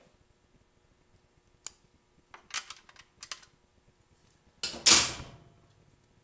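A few light clicks and taps from handling tools or parts, then a louder clunk about five seconds in as something is set down.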